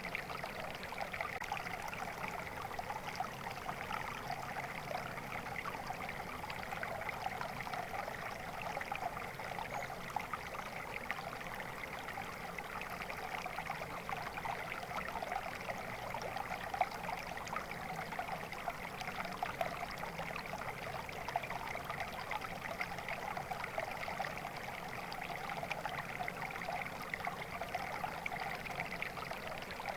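Water flowing steadily in a small stream, a continuous babbling trickle.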